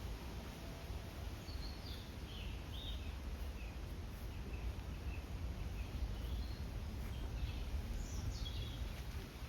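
Birds chirping in short scattered calls, with a few quick falling notes near the end, over a steady low rumble.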